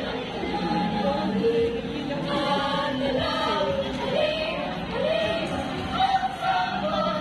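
Children's choir singing a melody in held notes.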